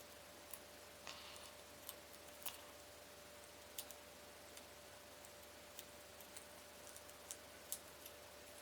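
Faint, irregular light clicks and ticks of small tweeter parts being handled, about a dozen scattered through, over a faint steady hum.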